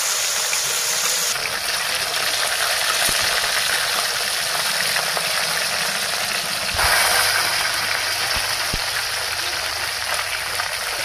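Pieces of katla fish, rubbed with turmeric and salt, sizzling steadily as they deep-fry in oil in a kadai, with a few light clinks of a metal spatula against the pan. The sizzle grows louder about two-thirds of the way through.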